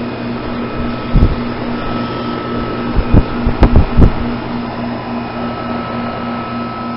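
2008 Goodman heat pump outdoor unit running, a steady compressor hum and condenser fan rush, while its coil is heavily iced over and it has not gone into defrost. A few dull low thumps come about a second in and again three to four seconds in.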